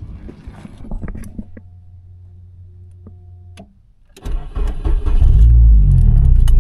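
Big-turbo Nissan Sentra B13's SR20 engine starting about four seconds in and then running loudly with a deep rumble. It is preceded by a few clicks and knocks.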